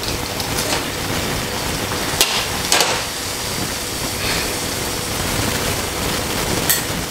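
Saucepan of water at a rolling boil on a gas stove, a steady bubbling hiss, with a few sharp metal clinks as the lid is lifted off and salt is spooned in.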